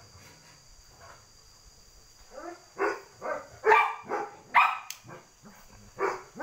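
A dog barking repeatedly, a run of short sharp barks about half a second apart that starts a couple of seconds in.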